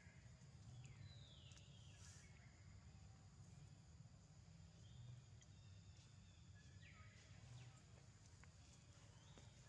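Faint outdoor ambience with a steady low rumble, broken several times by short, high-pitched animal calls that fall in pitch.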